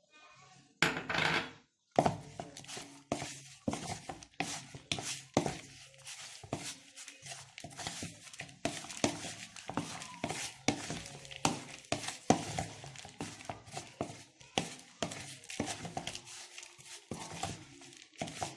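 Raw chicken pieces being mixed with cornstarch and flour in a bowl: a steady run of irregular knocks and scrapes against the bowl, about one or two a second, after a short rustling burst about a second in.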